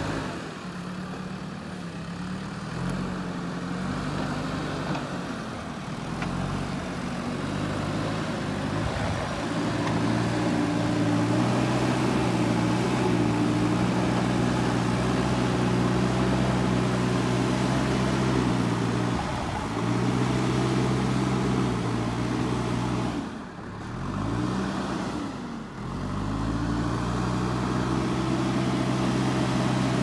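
JCB 3DX backhoe loader's diesel engine working under load as the machine pushes soil with its front bucket. It is a steady pitch that gets louder a few seconds in. Near the end the revs drop briefly and pick up again about three times.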